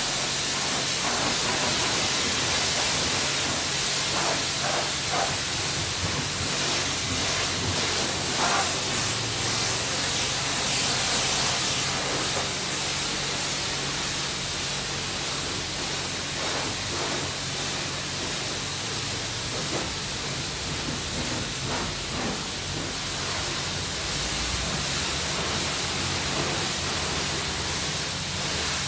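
High-pressure wand of a D&S self-serve car wash spraying onto a car's body: a steady, loud hiss with a faint low hum beneath it.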